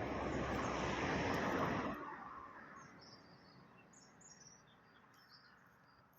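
A car going past, a broad rushing noise with a low rumble that drops away sharply about two seconds in. After it come faint, short, high chirps of small birds.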